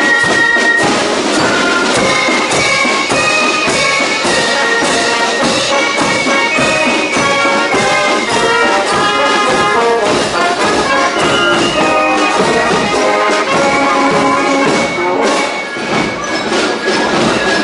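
Brass marching band playing as it marches, trumpets and trombones over the beat of a bass drum.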